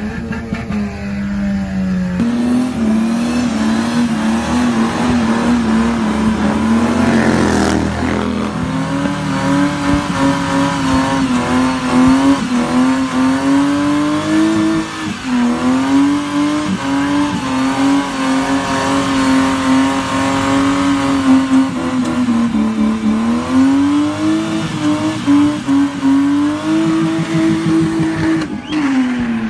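A car engine held at high revs during a burnout, its pitch wavering up and down with the throttle, over the steady hiss and squeal of spinning tyres.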